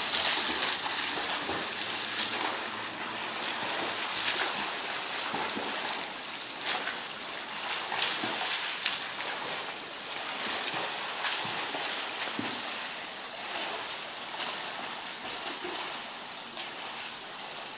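Splashing of a swimmer's front-crawl strokes in a pool, an irregular run of splashes that starts loud and grows fainter as the swimmer moves away.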